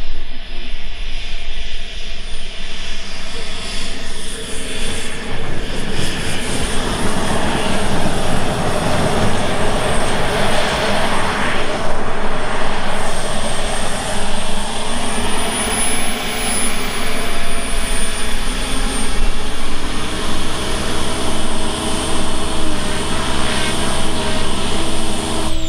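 Small jet turbine engine of a CARF Models Rebel Max RC jet running through landing and rollout. Its roar swells about ten seconds in, and a high thin whine rises briefly near the middle. The engine then settles into a steadier tone as the jet taxis.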